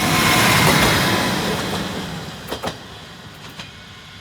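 A train passing close by and receding, its rumble loudest at first and fading steadily, with a few sharp clicks near the end.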